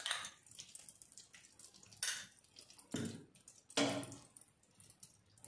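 Ghee dropped into a hot aluminium pressure cooker and melting, with about four short spitting, dripping sounds.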